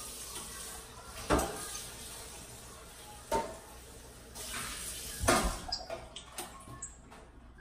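A kitchen tap runs into a stainless steel sink while a metal pan is rinsed under it. The pan knocks sharply three times, about two seconds apart. The running water stops a little over five seconds in, leaving a few light clicks.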